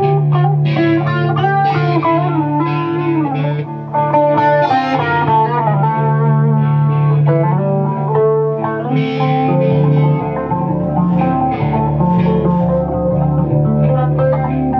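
Acoustic and electric guitar playing together, with plucked melodic lines over a steady low drone; a deeper bass layer comes in about ten seconds in.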